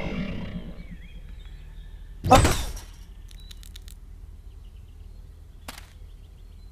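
Cartoon sound effects: a beaming tone from a flying saucer fading out, then one loud swish with a low thud about two and a half seconds in, followed by a few light clicks and a single sharp tick.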